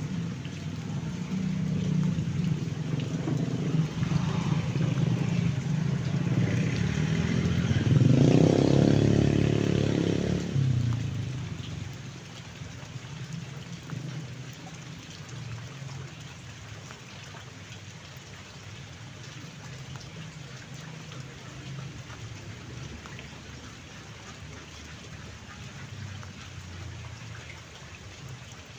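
Steady rain falling, with a motor vehicle passing in the first part. The vehicle is loudest about eight to ten seconds in and fades out by about twelve seconds, leaving only the even hiss of rain.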